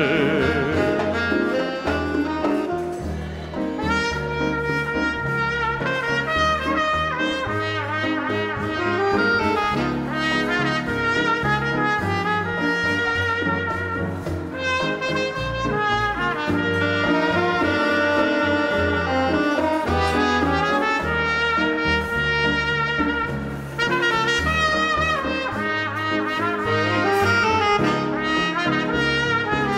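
A small Latin dance orchestra plays an instrumental break in a slow bolero. Trumpet and trombone carry the melody over saxophones, with bass and drums underneath.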